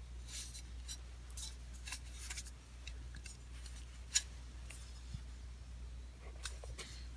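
Faint scraping and rubbing of a small rubber bushing being worked by hand into a hole in an aluminium skid plate, with a sharp click about four seconds in.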